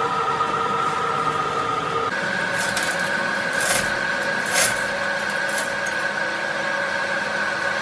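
Metal-working machine, likely a lathe, turning a compressor crankshaft: a steady whine whose pitch steps up about two seconds in, with a few short scraping sounds in the middle.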